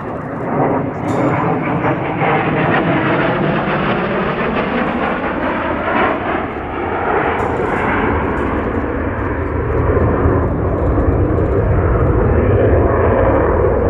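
Saab J35 Draken's single jet engine, a loud, rushing roar as the fighter flies its display overhead. The roar grows somewhat louder toward the end, with tones that sweep up and down as the jet moves.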